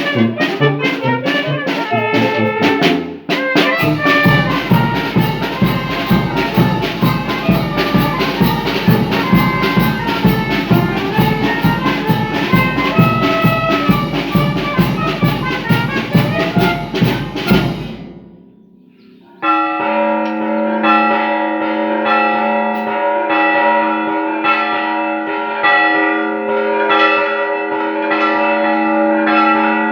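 Brass band with trumpets, trombones and drums playing a lively tune. It stops after about eighteen seconds, and after a short lull church bells start ringing, several bells struck over and over.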